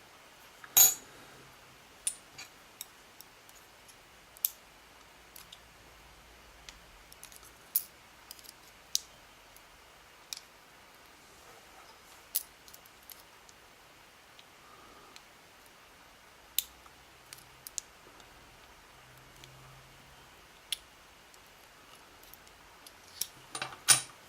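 Small metal parts of a TESA TE5 lock cylinder clicking and clinking as it is taken apart with tweezers. The clicks come singly at irregular intervals, with the sharpest about a second in and a quick run of them near the end.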